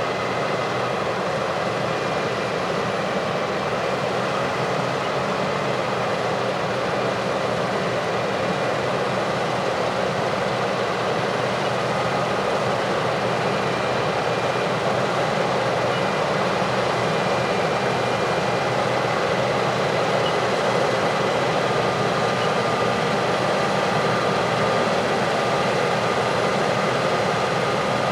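Heavy farm machinery running steadily, a constant engine and machine noise with faint steady whining tones, growing slightly louder.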